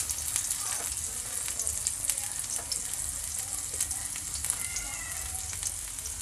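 Minced garlic sizzling in a little oil in a nonstick frying pan: a steady hiss with frequent small crackles and pops.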